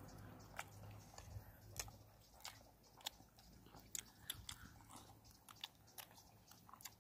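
Faint chewing close to the microphone: a person eating, with irregular small wet clicks and smacks of the mouth.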